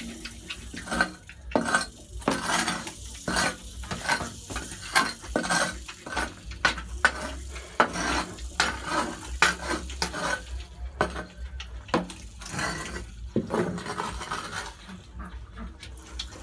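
Porcupines chewing and crunching hard food: a run of irregular crunches and clicks, two or three a second.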